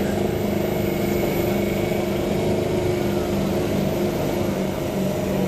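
Ford Super Duty pickup's diesel engine held at high revs under full load while dragging a pulling sled, its pitch steady with slight wavering.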